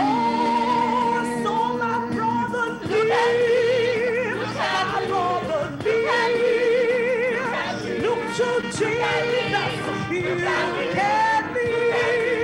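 Live gospel music: a small group of women sings a chorus in long held notes with a strong vibrato, backed by a band.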